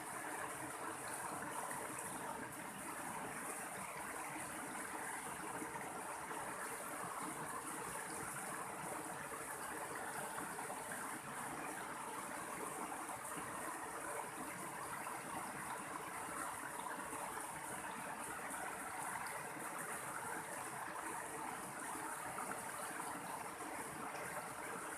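Mountain stream flowing, a steady, unbroken rush of running water.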